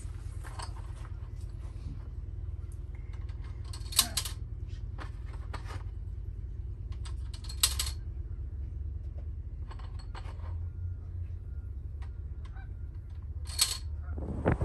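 Plastic Connect Four checkers clicking as they drop into the upright grid: three sharp clicks a few seconds apart, with fainter clatter in between, over a steady low hum.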